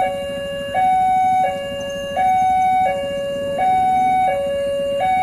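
Railway level-crossing warning alarm sounding a steady two-tone electronic ding-dong. A higher and a lower tone alternate evenly, each lasting about two-thirds of a second, signalling that the barriers are down and a train is approaching.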